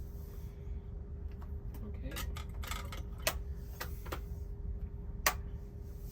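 Sharp clicks and taps of small metal hand tools on a repair bench, about six over a few seconds with the loudest near the end, over a steady low hum.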